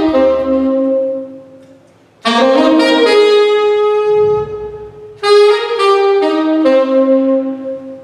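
Solo flugelhorn playing a slow melody in three phrases: a held note that fades out about a second in, then after a short breath a phrase of several notes, and a third phrase starting about five seconds in.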